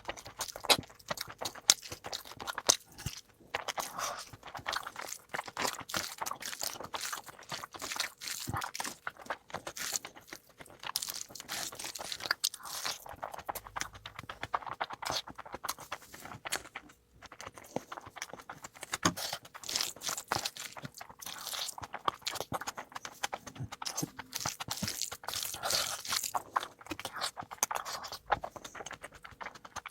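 Close-miked eating sounds: chewing and crunching food, a dense, irregular run of small mouth clicks and snaps.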